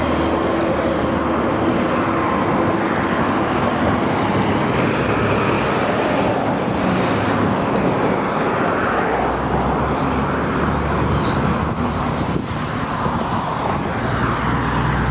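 Road traffic and cars moving through a parking lot, a steady wash of noise with a low engine hum that comes and goes.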